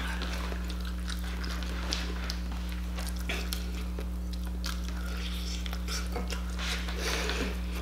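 Chewing and wet smacking from eating sauce-covered spicy chicken wings by hand, with scattered short clicks and smacks over a steady low hum.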